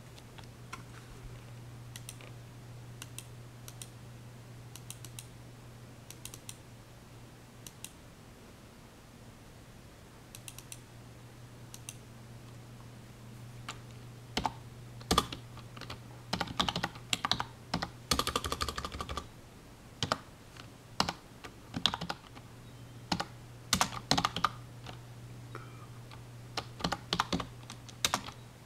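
Typing on a computer keyboard: scattered single key clicks at first, then quick runs of keystrokes through the second half, over a steady low hum.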